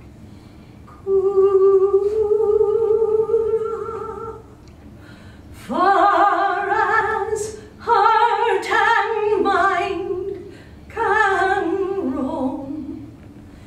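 A woman's voice singing without accompaniment, in four long phrases of sustained, held notes.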